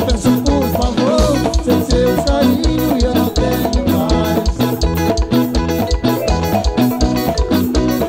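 Lambadão dance music from a live band: a fast, steady drum-kit beat under melodic instrumental lines.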